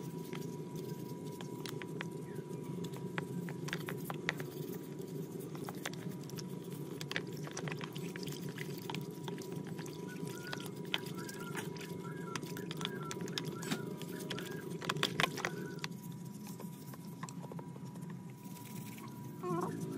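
Brush scrubbing an old Husqvarna chainsaw's plastic housing parts in soapy water: a steady rasp of bristles with scattered clicks and light knocks as the parts are handled, the scrubbing easing off a few seconds before the end.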